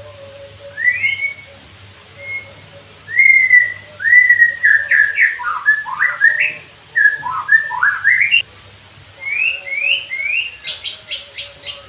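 White-rumped shama (murai batu) singing loud, clear whistled phrases that slur quickly up and down in pitch. Near the end it breaks into a fast run of short, sharp repeated notes, about six a second.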